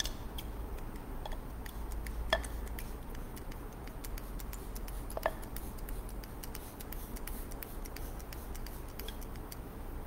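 Small hand-held pump mister being worked again and again, misting water onto potting soil: a run of light, irregular clicks from the sprayer over a faint hiss, with a couple of louder clicks in the first half.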